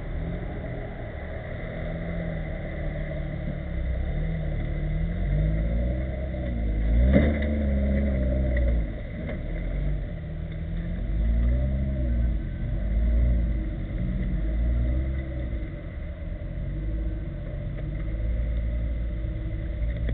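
The diesel engine of a six-wheeled off-road truck, revving up and down again and again as it crawls through mud and water, with a sharp jump in revs about seven seconds in.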